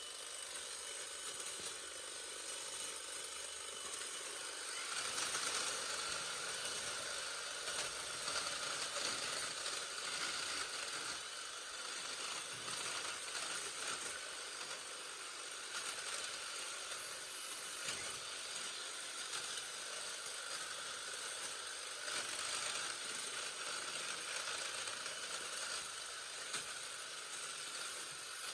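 Battery-powered EGO multi-tool with hedge trimmer attachment running, its reciprocating blades cutting back thick Photinia hedge branches. It gets louder about five seconds in and runs steadily after that.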